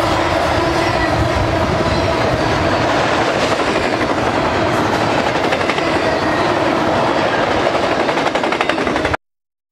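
Double-stack intermodal freight cars rolling past at track side: a steady rumble and clatter of steel wheels on the rails. It cuts off abruptly near the end.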